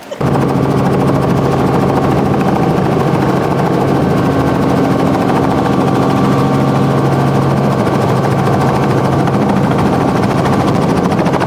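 Robinson R44 Raven I helicopter running at lift-off power: a loud, steady rotor and piston-engine sound with a constant low hum, cutting in abruptly at the start.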